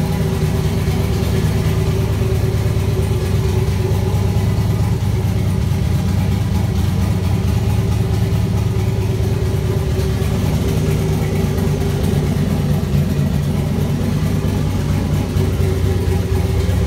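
Turbocharged 5.3 L LS V8 in a Chevy Silverado idling steadily, its exhaust exiting at the fender.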